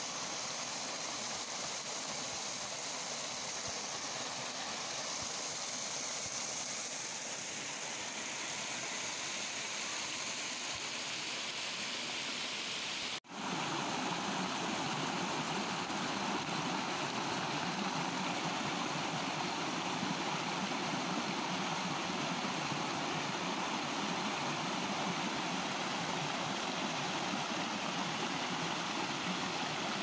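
Mountain stream water cascading over rocks in small falls into a pool, a steady rushing. It breaks off for an instant about 13 seconds in, then comes back fuller and a little louder.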